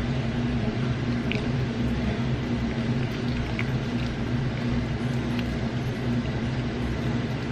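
A steady low mechanical hum from a running appliance or fan, with a few faint soft ticks from hands pressing stuffing into raw chicken breasts.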